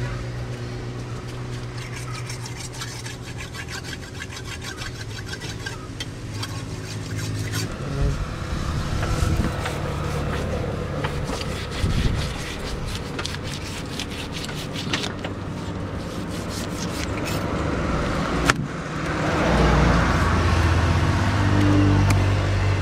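Runs of quick scraping clicks, several a second, from a knife working on a big catla carp, over a steady engine hum and road traffic. A single sharp knock comes near the end, followed by a louder passing vehicle.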